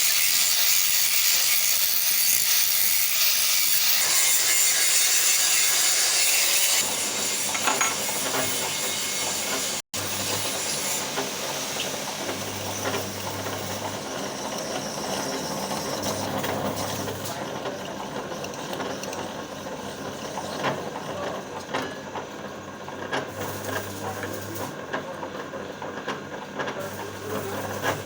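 Welding work: a strong steady hiss for about seven seconds, then, after a brief break, crackling and sputtering with a low electrical hum that switches on and off several times.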